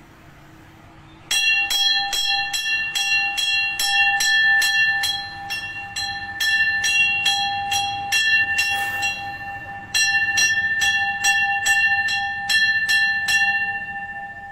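A temple bell rung fast and steadily, about four strokes a second, with its tone ringing on between strokes. It starts about a second in, stops briefly about two-thirds through, starts again, and rings out near the end.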